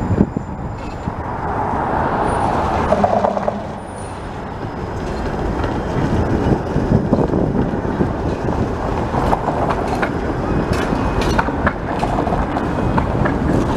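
Bombardier Flexity Outlook streetcars rolling slowly through an intersection on curved track: a steady rumble of wheels on rail, louder a couple of seconds in, with scattered sharp clicks and knocks in the later part, over street traffic.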